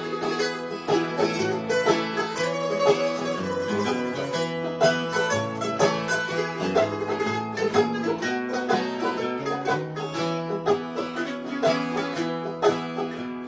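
Instrumental break in a bluegrass song: banjo picking fast rolls over acoustic guitar backing.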